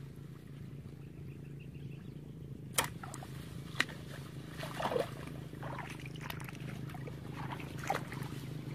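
Water sloshing and splashing as a person wades through a shallow pond, with several sharper splashes and clicks, the loudest about three seconds in. A steady low hum runs underneath.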